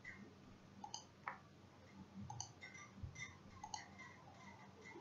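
Faint computer mouse clicks, several at irregular intervals about a second apart, over quiet room tone.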